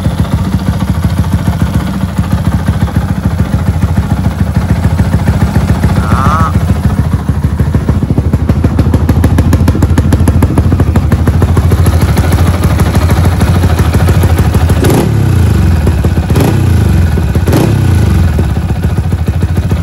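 A modified motorcycle engine idling with a loud mechanical clatter over the idle, the kind of noisy engine that is still tolerable rather than bad. The throttle is blipped three times in the last few seconds, each a short rise and fall in revs.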